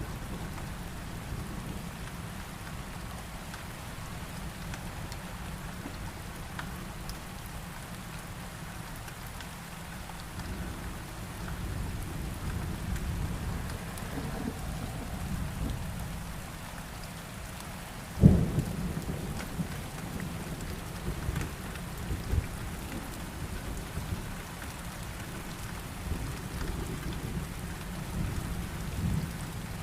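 Steady heavy rain with low rolling thunder. A sharp, loud thunderclap breaks about two-thirds of the way through, followed by further rumbling.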